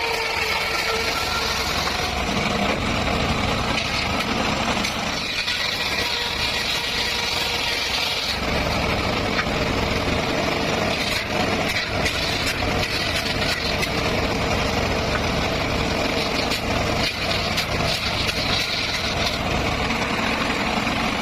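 Circular saw running steadily while sawing petung bamboo, a continuous mechanical drone whose texture shifts a few times as the load changes.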